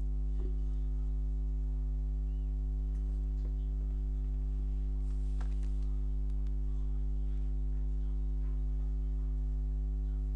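Steady electrical mains hum with a buzzing ladder of overtones, unchanging throughout, with a few faint clicks on top.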